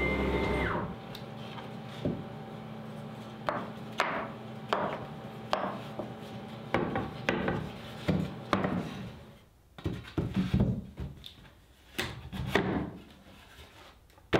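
CNC router running, stopping about a second in; then a string of irregular wooden knocks and clatters as cut plywood parts are broken free of the sheet and handled.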